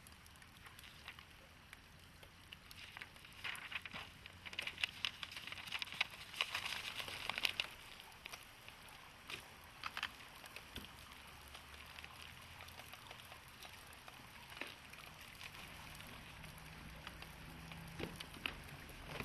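Faint crackling and rustling handling sounds, a scatter of small sharp clicks that thickens for several seconds about a third of the way in, as paper is handled. A faint low hum comes in near the end.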